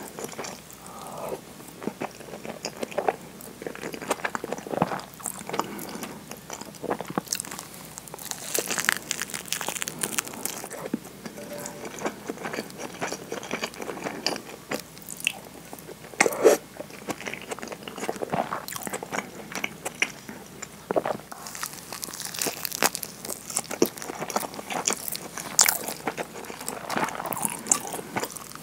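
Close-miked eating sounds: chewing and biting into a nori-wrapped rice ball and mouthfuls of thick curry udon, with many irregular wet mouth clicks and smacks.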